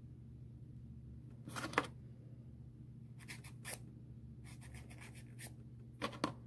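Nail file rasping in short scratchy strokes across the edge of a gel nail strip, filing off the excess at the fingertip. The strokes come in small groups, the loudest about a second and a half in, over a faint steady low hum.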